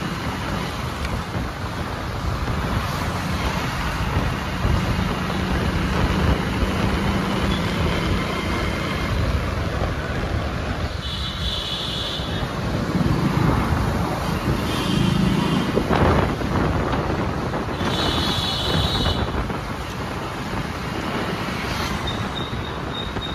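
Street traffic: motor vehicles passing with a steady road noise, and short high-pitched horn toots twice.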